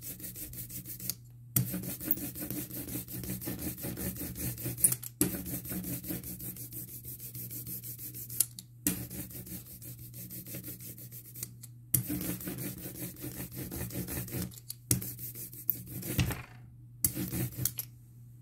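Ink brayer rolling printing ink over a carved relief-print block: a rasping hiss in repeated rolling passes, broken by short pauses as the roller is lifted. It stops shortly before the end.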